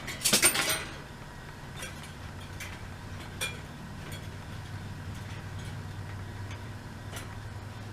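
Metal clinking and rattling from a wire bird cage and paper clips being handled: a loud cluster of clinks in the first second, then a few faint clicks over a steady low hum.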